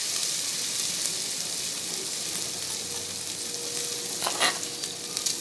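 Ginger-garlic paste and a green chilli sizzling in hot oil in a pressure cooker pan: a steady frying hiss, with a brief faint knock about four seconds in.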